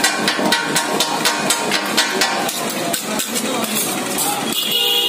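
Two steel blades chopping kothu parotta on a flat iron griddle: a fast rhythmic clatter of metal striking metal, about four to five strikes a second, that thins to a few scattered strikes in the second half.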